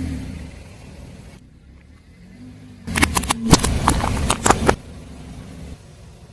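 Car tyre rolling over and crushing brittle objects: a dense run of sharp cracks and crunches lasting about two seconds, starting about three seconds in, over the low hum of the car's engine running slowly.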